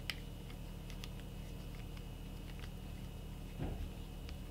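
Faint light clicks and ticks of a white plastic beer-keg spigot being handled as its threaded ring is unscrewed, with a soft bump near the end, over a steady low room hum.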